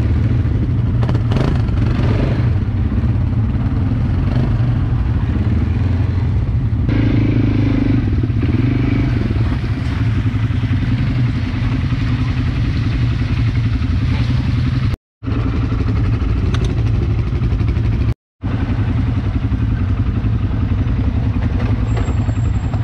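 ATV engine running steadily as the quad is ridden along a trail, with a strong low hum. The sound cuts out to silence twice for a moment, about fifteen and eighteen seconds in.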